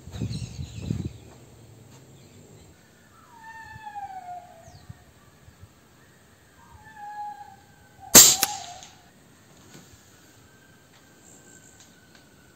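A single sharp shot from a PCP air rifle about eight seconds in, the loudest sound, with a short ring after it. Before it come two long falling meow-like animal calls, and a faint high whistle slowly falls in pitch near the end.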